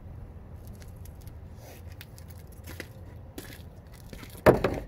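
Light clicks and scrapes of PVC pipe fittings and supplies being handled, then one sharp loud knock about four and a half seconds in, over a steady low hum.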